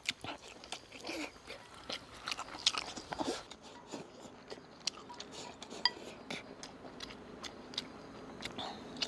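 Eating sounds: chopsticks clicking and scraping against a rice bowl as rice and braised pork are shoveled into the mouth, then chewing. Many small scattered clicks throughout, with a couple of brief scraping smears in the first few seconds.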